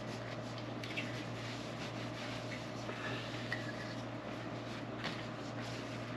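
Cloth wiping a car door handle clean with an alcohol and water mix: faint rubbing with a few light clicks, over a steady low hum.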